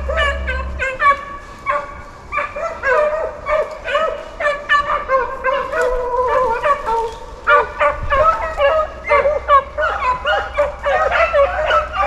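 A pack of beagles baying in chase on a swamp rabbit's trail, many dogs' voices overlapping without a break.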